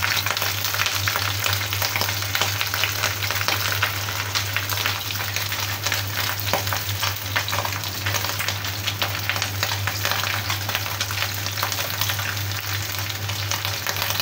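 A whole fish pan-frying in oil in a wok: a steady sizzle with scattered crackles and pops.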